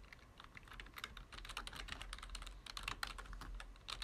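Typing on a computer keyboard: quick runs of keystroke clicks, with a brief pause just after the start.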